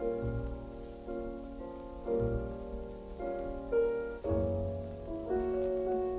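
Piano playing slow, sustained chords in a 1930s jazz band recording, a new chord struck about once a second and left to ring.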